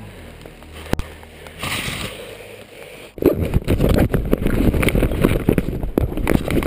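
Handling noise on an action camera's microphone. A faint rustle and a single click come first; then, from about three seconds in, loud rubbing and crackling knocks as the camera is grabbed and its lens covered.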